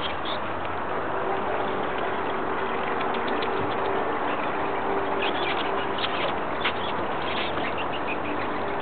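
A steady engine-like hum, with a few short high-pitched squeaks about half a second in and between about five and seven and a half seconds in.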